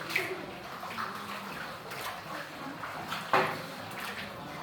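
Water splashing and lapping around a rowed boat, echoing off the cave walls, with a sharp splash or knock about three seconds in, the loudest moment.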